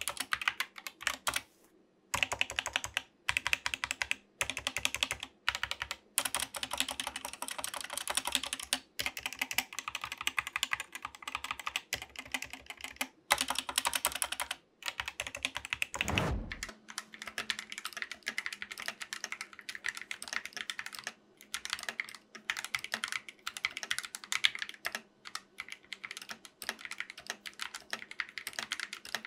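Fast typing on compact mechanical keyboards with Gateron optical switches: a dense, steady run of key clacks broken by short pauses. About halfway a brief falling sweep marks a change to a second board, a modded GK61 with a neoprene foam insert and clipped, band-aid-modded stabilizers.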